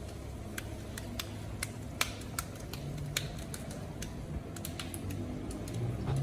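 Kitchen work: irregular sharp clicks and taps, a few a second, over a steady low rumble.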